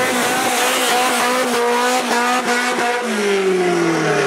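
A car's engine running at high revs as it speeds past, its pitch dropping steadily from about three seconds in as it pulls away.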